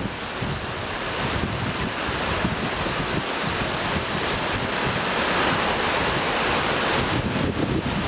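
Heavy thunderstorm rain falling steadily, with wind buffeting the microphone; the rush grows a little louder about halfway through.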